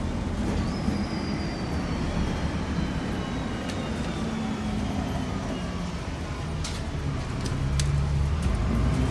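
Interior of a city transit bus under way: steady engine and road rumble, with a faint high whine sliding slowly down in pitch over several seconds and a few short rattles. The engine note grows louder near the end.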